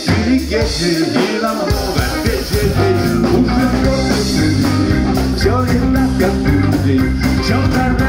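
Live band music with drum kit, bass and a singer's voice. The low end drops out briefly near the start, then the bass and drums settle into a steady groove about three seconds in.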